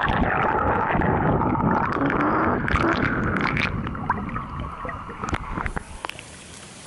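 Muffled underwater rush and gurgle of churning water and bubbles as a swimmer kicks and strokes past. It thins out about five seconds in, with a few sharp splashy clicks, then drops to quieter pool ambience.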